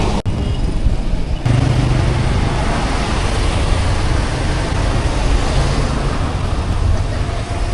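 Steady rush of wind and road noise from a bicycle ride, with a heavy low rumble of wind on the microphone; the rumble shifts about a second and a half in.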